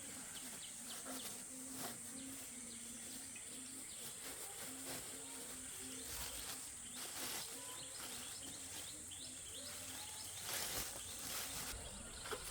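Steady, high-pitched chorus of insects, crickets or cicadas, with scattered short bird chirps over it. A low note pulses on and off through the first half.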